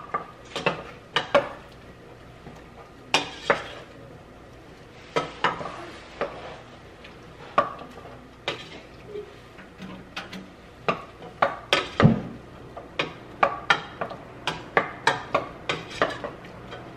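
Wooden spoon stirring food in a stainless steel pot, knocking and scraping against the pot's sides and rim in irregular taps, some in quick runs, the loudest knock about two-thirds of the way through.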